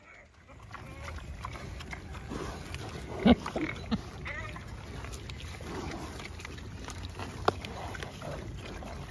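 Several pigs munching and crunching a raw pumpkin, with wet chewing and snuffling and a few short grunts. Two sharp cracks of the rind stand out, about three seconds in and again later.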